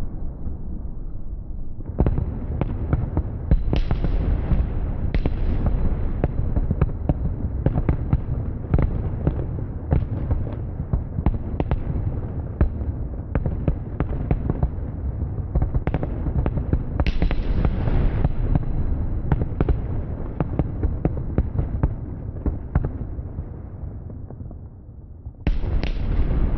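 Fireworks display: aerial shells bursting in a dense run of booms and crackles. The bursts thin out, then a fresh loud volley starts near the end.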